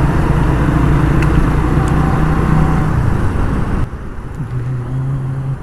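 Suzuki GS 150's single-cylinder four-stroke engine running steadily under way, with road and wind noise, among traffic. About four seconds in the noise drops abruptly to a quieter, lower steady engine hum.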